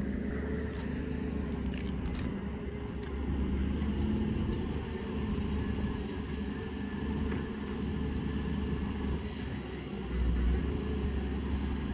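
Diesel engines of a working wheeled excavator and a dump truck running steadily, a low rumble that swells briefly near the end.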